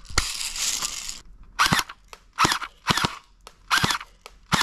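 Electric M4 airsoft gun fired in short trigger taps: a string of brief bursts, each a quick rising gearbox whine with the snap of the shot. The gun fires only full-auto, so short pulls are used to get single shots.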